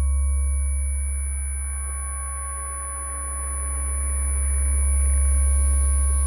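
Ambient meditation drone: a deep bass tone that ebbs and swells slowly under several steady, pure high tones, with a soft hiss rising through the middle.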